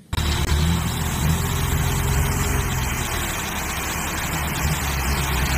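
Dump truck's engine running steadily while its bed tips and gravel pours out over the tailgate, with a hiss of sliding gravel over the low rumble.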